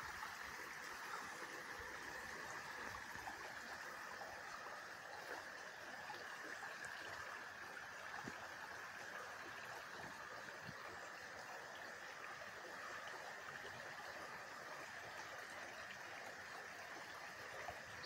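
Faint, steady rush of running water, even and unchanging.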